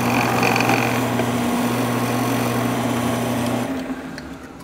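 Drill press motor running steadily with a hum. In the first second there is a higher grinding as a plastic part is held against the spinning tool. The motor is switched off a little before the end and winds down.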